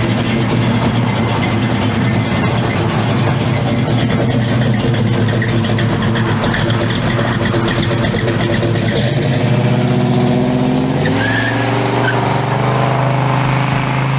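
First-generation Chevrolet Camaro's engine running steadily as the car rolls out at low speed, then accelerating, its pitch stepping up and rising over the last few seconds.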